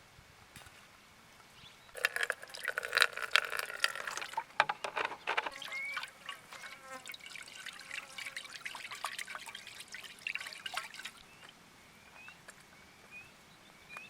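Water being poured into a container, loudest about two seconds in, then trickling and dripping for several seconds before fading.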